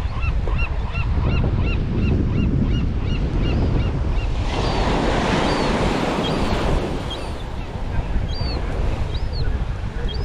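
Surf washing on a beach with wind rumbling on the microphone; one wave washes in loudly a little before the middle. Over it a bird gives a string of short rising-and-falling calls, quick at first and slower near the end.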